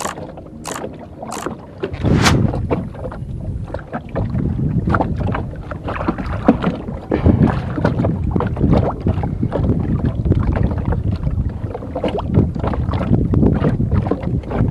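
Water sloshing and splashing around a small wooden outrigger boat, with wind buffeting the microphone. A few sharp clicks come in the first two seconds.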